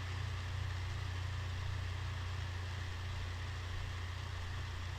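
Steady low hum with an even hiss over it, unchanging throughout: background noise of the room or recording, with no distinct event.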